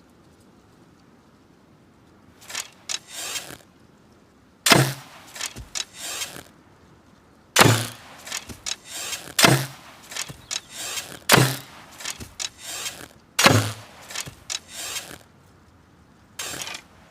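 Hunting bow being shot again and again: five sharp cracks of the string's release, about two seconds apart, each with a short low hum and a rattle of clicks after it. Lighter clicking comes before the first shot and near the end.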